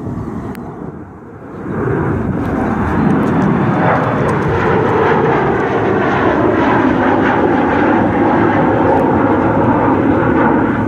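Jet airliner engines passing close by: the noise swells up about a second and a half in and stays loud and steady, with faint whining tones bending slowly in pitch.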